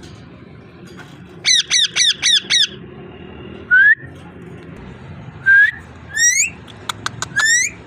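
Ringneck parrot calling: a quick run of five sharp squawks that rise and fall in pitch, then several single calls that slide upward, with a few short clicks near the end.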